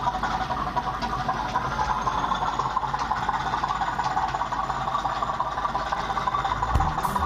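Model diesel locomotive running along the layout's track, a steady mechanical running and rattling noise.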